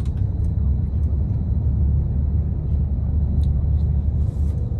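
Coach bus driving, heard from inside the passenger cabin: a steady low rumble with a few faint ticks and rattles.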